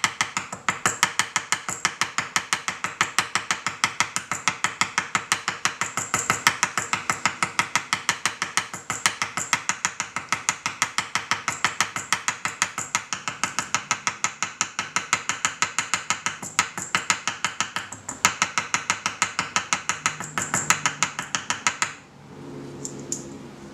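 Small hammer tapping rapidly on the end of a 1 mm metal wire rivet, about five light metallic strikes a second, spreading the rivet head down flat against the metal piece. The tapping stops about 22 seconds in.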